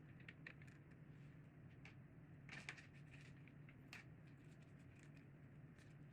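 Near silence with a low steady hum and a scattering of faint small clicks and rustles, the clearest cluster about two and a half seconds in: light handling of small packaged items.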